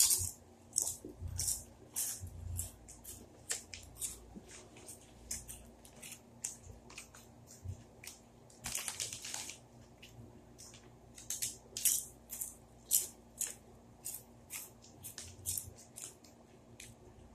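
Crunchy potato chips being chewed close to the microphone: irregular sharp crunches several times a second, with a longer crackling rustle about nine seconds in.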